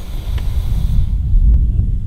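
Wind buffeting the microphone, heard as a loud, uneven low rumble. The higher hiss drops away about a second in.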